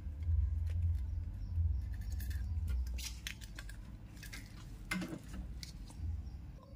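Desoldering wick pressed by a soldering iron onto circuit-board pads, drawing solder out of the jack's holes: scattered faint crackles and small scrapes over a low steady hum.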